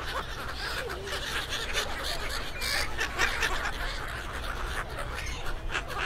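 A large flock of gulls calling over one another in quick, chattering cries, mixed with the walla of a crowd talking in Thai.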